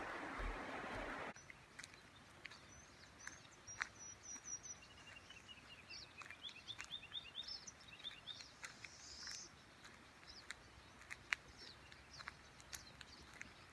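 Forest birds calling: many short high chirps and quick runs of notes, with scattered faint clicks. Rushing stream water is heard for the first second or so and cuts off abruptly.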